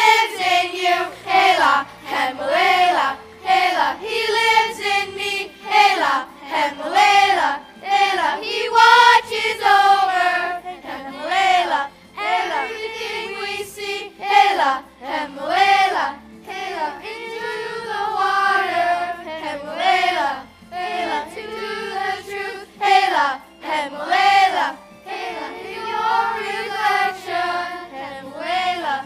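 A large group of children singing together as a choir, in sung phrases of a second or so each.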